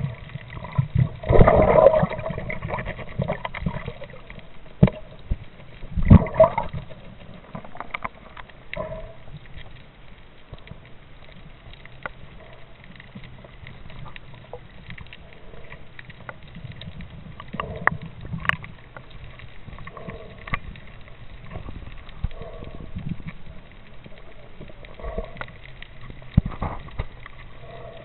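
Muffled underwater sound heard through a submerged camera: water sloshing and gurgling over a faint low hum, with scattered clicks and knocks. Two louder surges of water noise come about a second in and again around six seconds.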